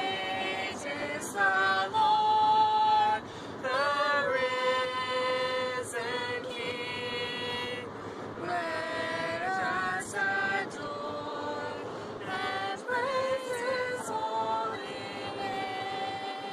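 A small group of people singing a new song together from sheet music, sustained sung notes gliding between pitches, with the low hum of road noise inside a moving car underneath.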